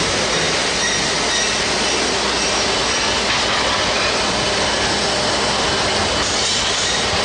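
Abaco SVL100 stone vacuum lifter running with a steady, loud rushing hiss of air while its suction pads grip a stone slab.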